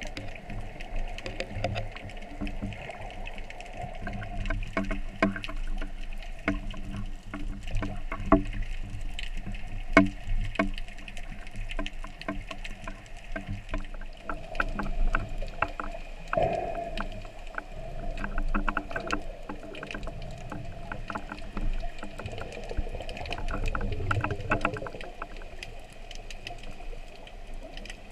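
Underwater sound heard through a camera housing: many irregular sharp clicks and crackles over a steady low hum.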